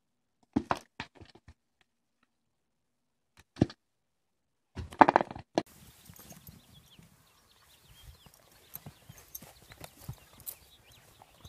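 A few short separate sounds in the first half, the loudest about five seconds in, then a horse moving about in snow: faint scattered hoof thuds and crunches over a light outdoor hiss.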